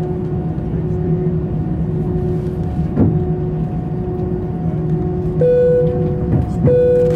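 Airliner cabin while taxiing: the jet engines' steady drone with a low hum, and a single knock about three seconds in. Near the end come two long, even tones of about a second each.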